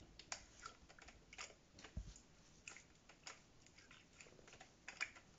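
Clear yellow slime being stretched and squeezed by hand, giving faint irregular clicks and pops, a few each second.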